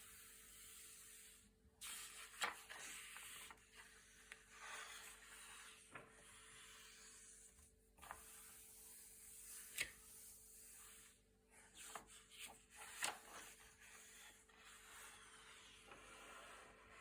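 Thick, glossy paper pages being turned by hand: a soft rubbing rustle broken by a few sharp, crisp crackles of the stiff paper, three of them louder than the rest.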